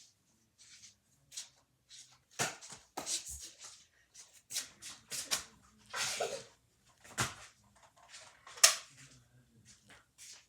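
Irregular sharp clicks, thumps and rustling from Nerf blasters being handled and fired and people moving around, with one sharp crack about three-quarters of the way through standing out as the loudest.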